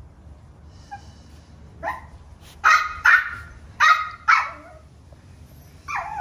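Miniature Schnauzer puppy barking: a quick run of about five short, high barks about two seconds in, then one call falling in pitch near the end.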